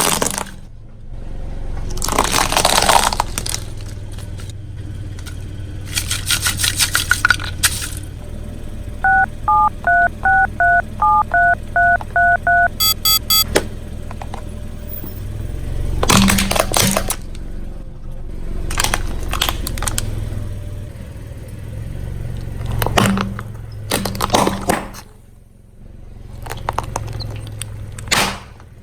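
Car tyre rolling over objects, making repeated crunching and cracking bursts over a low engine hum. In the middle comes a run of about a dozen touch-tone phone beeps, then a quick burst of beeps.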